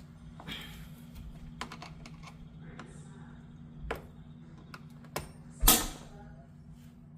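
Scattered small clicks and taps of hand tools and metal door hardware being worked, with one louder knock about five and a half seconds in, over a steady low hum.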